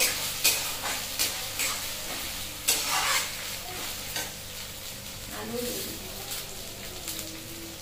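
Whole garlic cloves and onion sizzling in hot oil in a steel karahi while a metal spatula stirs and scrapes the pan. The scrapes come often in the first half and thin out near the end, leaving the steady sizzle.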